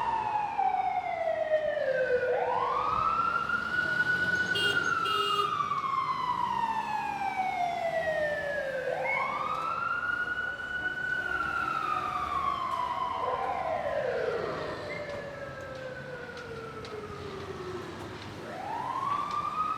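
Fire truck siren wailing: the pitch rises quickly, then slides slowly down over six or seven seconds, repeating about three times. A second, fainter falling siren tone crosses it briefly about two-thirds of the way through.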